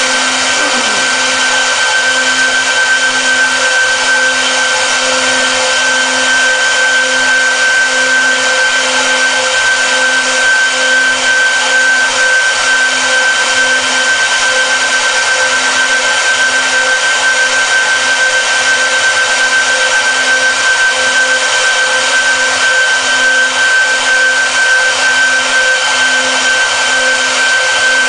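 Four high-speed spindles of a multi-head CNC wood router running together while carving wood, a steady high-pitched whine over the hiss of the bits cutting.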